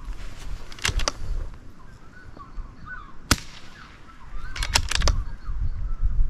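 A single sharp .22LR rifle shot about three seconds in. Lighter clicks come before it and a quick run of about four clicks follows a second or so later, as the rifle's action is worked. Faint bird chirps in between.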